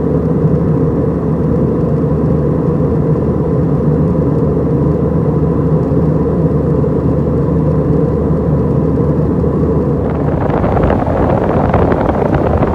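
Steady low drone of an Airbus A320 in flight, its CFM56-5A engines and the airflow heard inside the cabin from a seat over the wing, with a faint steady whine. About ten seconds in it changes to a broader, hissier rush.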